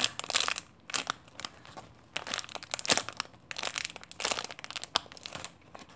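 Clear plastic packaging crinkling in irregular bursts as a bagged Pompompurin cupcake squishy is handled and squeezed through the bag.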